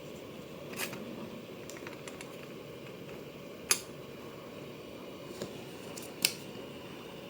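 Hot air soldering gun's blower running steadily at its 400 setting, with a handful of sharp, light clicks over it.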